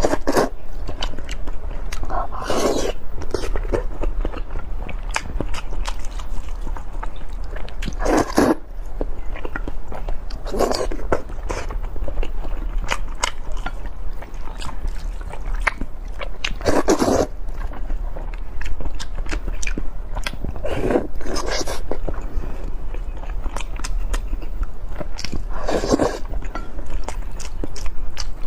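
Close-miked eating: steady chewing and crunching with many small mouth clicks, and a louder mouth sound every four to six seconds.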